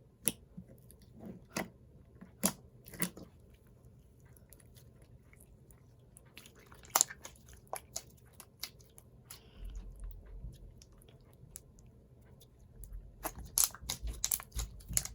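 Thick, glossy slime being squished and stretched by hand as its add-ins are mixed in, giving irregular sharp pops and crunchy clicks that come thicker near the end.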